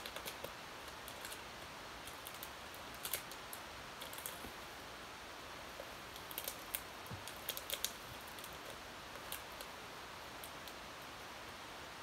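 Small scissors snipping at a thin plastic packet: scattered short clicks and snips, a few in quick little clusters, with quiet room hiss between.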